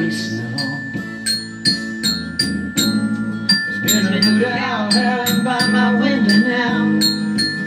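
Glockenspiel struck with mallets, a steady run of bright, ringing single notes a little under three a second, over a recorded instrumental backing track.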